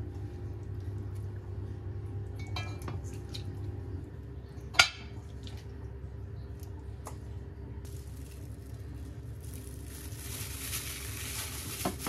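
Kitchen sounds over a steady low hum: a few clinks of dishes and one sharp click about five seconds in. Then, from about eight seconds in, a sizzle of food frying in a pan rises and keeps going.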